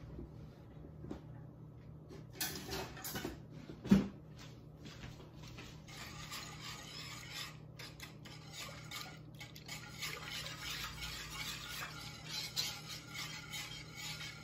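Wire whisk beating a thin custard mixture of egg yolks and milk in a pot, a fast, even scraping and clicking of the whisk against the pot from about six seconds in. A single sharp knock about four seconds in is the loudest sound.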